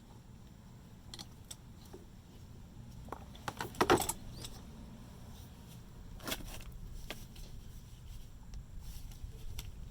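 Scattered light clicks and rattles of a fuel pump and its strainer being worked with a flathead screwdriver, with the loudest clatter about four seconds in and another knock a couple of seconds later.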